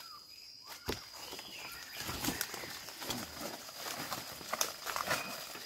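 Footsteps through dry leaf litter, with leaves and stems rustling as undergrowth is pushed aside, in irregular steps and crackles. A thin steady high-pitched tone runs behind.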